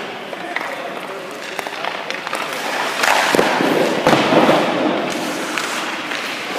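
Ice hockey skates scraping on the ice, with sharp knocks about three and four seconds in from the puck, sticks or goalie pads.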